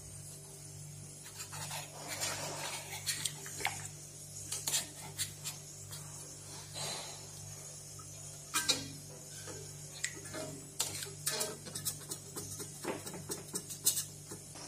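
A utensil clicking, tapping and scraping against a black kadhai (wok) with water in it, working at a sticker stuck inside the pan, in many irregular short strokes. A steady low hum sits underneath.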